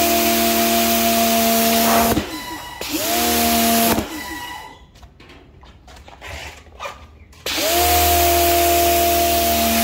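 Electric pressure washer running, its motor hum under the hiss of the water jet on concrete. It cuts out about two seconds in, runs again for about a second, stops for about three seconds, then starts up again near the end, each start with a short rising whine as the motor spins up.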